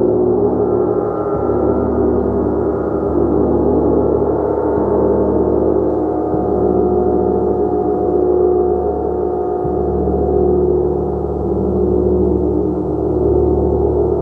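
A gong played continuously: a dense, sustained wash of many overlapping tones that swells gently every few seconds as it is struck again.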